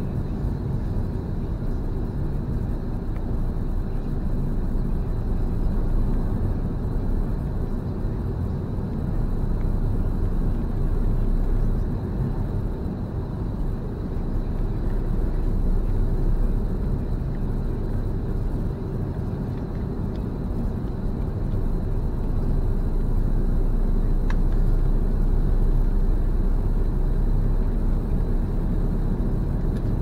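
Steady road and engine noise inside a moving car's cabin: a low rumble that swells and eases a little with the bends in the road. A faint, steady high-pitched tone runs through it.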